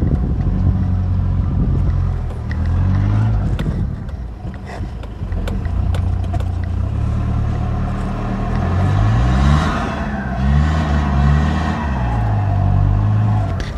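Toyota Hilux pickup's engine revving up and down over and over while its wheels spin in soft deep sand in two-wheel drive: the truck is losing traction and digging itself in.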